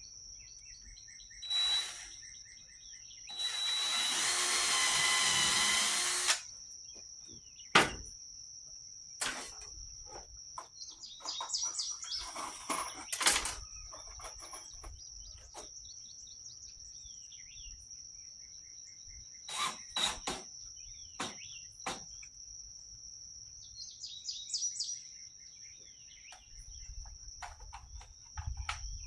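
A cordless drill runs for about three seconds, boring or driving a screw into oak framing, followed by scattered sharp knocks and clicks. Birds chirp now and then over a steady high insect trill.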